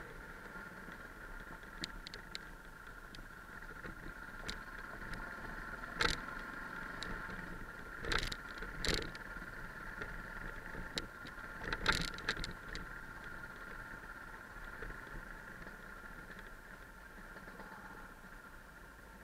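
Yamaha 660 single-cylinder dual-sport motorcycle engine running steadily at low speed on a rough dirt track. Knocks and rattles come from the bike bouncing over stones, loudest about six, eight to nine and twelve seconds in.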